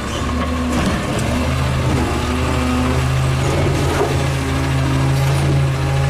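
Natural-gas automated side-loader garbage truck running, its engine humming steadily. A deeper hum joins about a second and a half in as the hydraulic arm lifts a wheeled cart to empty it.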